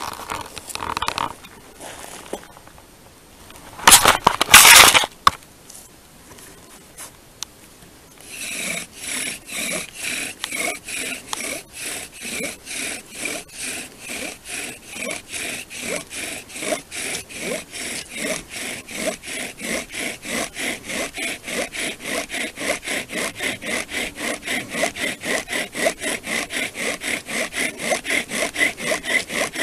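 Bow drill in use: the wooden spindle is spun back and forth in a wooden fireboard, giving rhythmic rasping, squeaking strokes, about two to three a second, that start about eight seconds in and grow a little faster and louder. Smoke shows the friction is charring the wood toward an ember. Before the strokes there is rustling and a short, loud scuffing noise about four seconds in.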